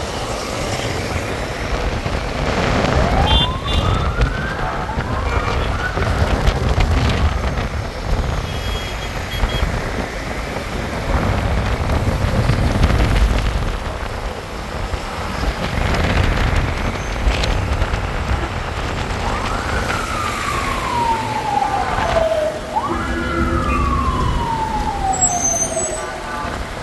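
An emergency-vehicle siren wailing, sweeping up twice a few seconds in and down three times near the end, over a steady wash of traffic and tyres running through water on a flooded, rain-wet street.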